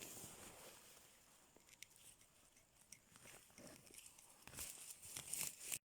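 Soft rustling and crunching of grass and leaf litter being handled, with scattered small snaps, growing louder near the end before cutting off suddenly.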